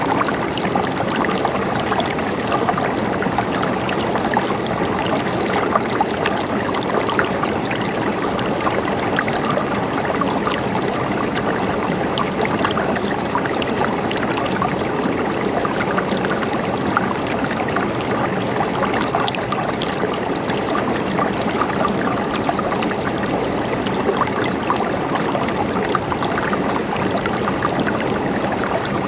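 A small stream of running water, flowing steadily with many tiny splashes and drips.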